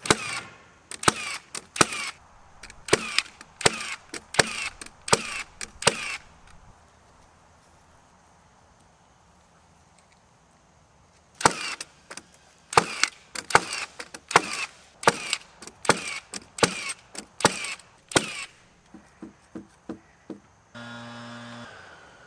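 Nails being driven into wood framing: runs of sharp, ringing strikes about one to two a second, pausing for several seconds midway. A steady low-pitched hum starts near the end.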